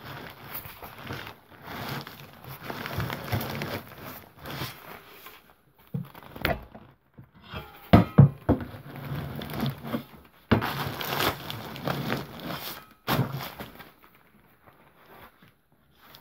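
Rubbish of plastic bags, paper and wrappers crinkling and crackling as it is pushed and pressed down into a plastic wheelie bin with a wooden-handled tool, with several sharp knocks in the middle. The crinkling dies away near the end.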